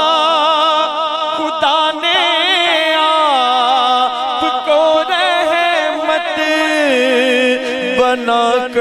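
Male voice singing an Urdu naat, drawing out long, wavering, ornamented notes between sung lines.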